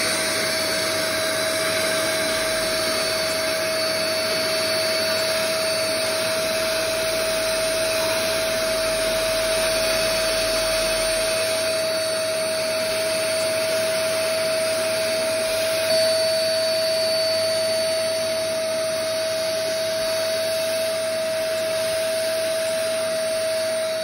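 Handheld vacuum cleaner running steadily with a constant whine, its nozzle held to a laptop's cooling fan and air vent to suck out years of accumulated dust.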